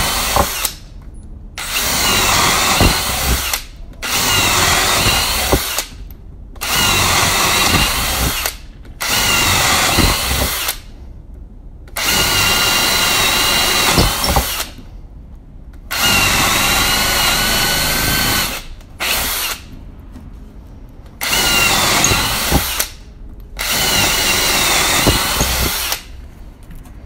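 Einhell 18V cordless drill boring a series of holes into a small block of soft pine with a twist bit, in about nine short runs of one to two seconds each. The motor whines up under trigger and drops away between holes, going through the softwood easily.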